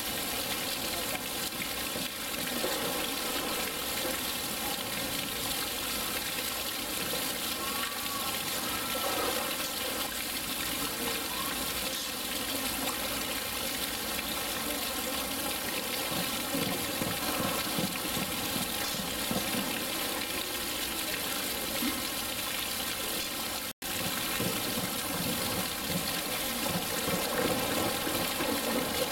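Steady rushing and splashing of water in a polar bear pool, cut off for an instant about three-quarters of the way through.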